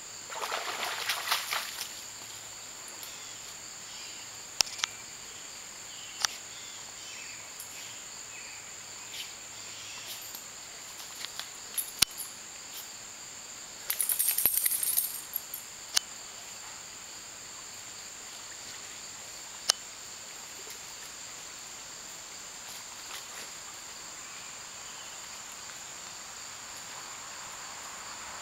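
Steady high-pitched insect chorus in summer woods, with a brief noisy burst about a second in, another around the middle, and a few single sharp clicks.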